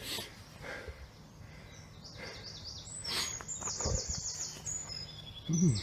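A small songbird singing in woodland: a run of short, high, falling notes, then a fast high trill about four seconds in. A few soft thumps or rustles under it.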